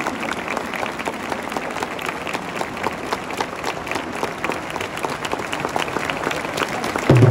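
Crowd of football supporters clapping and applauding, a dense steady patter of many hands. Just before the end a much louder, low, sustained supporters' chant or music starts up.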